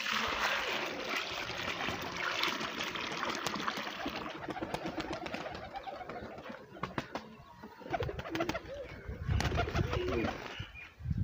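A flock of domestic pigeons feeding at a bowl, with dense rustling and many short clicks, and cooing in the second half. Near the end there are heavy wing flaps as several birds take off.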